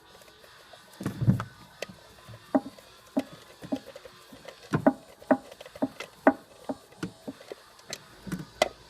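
Irregular sharp clicks and knocks, about one or two a second, from fitting a distributor cap onto a Chevy 4.3 L V6's distributor and starting its hold-down screws.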